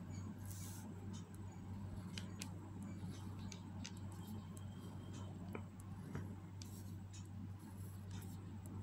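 Ballpoint pen scratching on paper as curved lines are drawn, with scattered short ticks of the pen tip, over a steady low hum.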